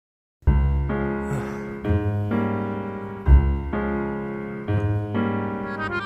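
Background music: sustained keyboard chords over a bass line, changing every second or so, coming in abruptly about half a second in after a moment of total silence.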